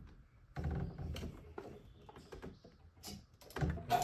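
A few soft plastic clicks and knocks as the cap is pushed back onto the top of a 3D-printed hydroponic tower.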